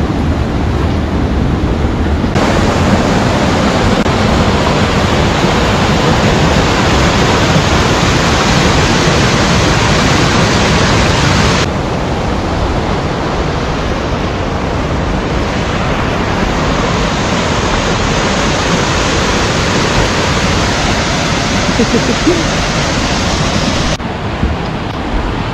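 Loud, steady rush of falling water from a waterfall. It changes abruptly in level and brightness about 2 seconds in and again around 12 seconds.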